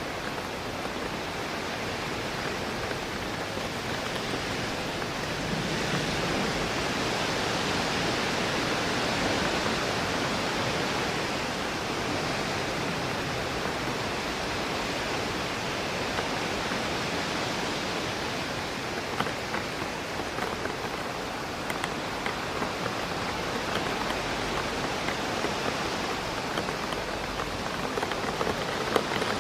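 Steady rain pattering against a window pane, with wind rushing through trees that swells and eases, and individual drops ticking on the glass.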